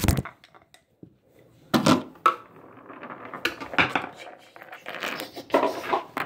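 Handling noise from working on a plastic alarm clock's battery compartment with a screwdriver. A thump at the start, two sharp knocks about two seconds in, then irregular clicking, scraping and clattering of small hard objects.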